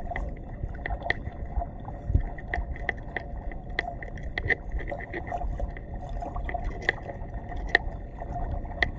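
Barefoot footsteps squelching and splashing through shallow water over soft mud, with many short irregular clicks over a steady low rumble.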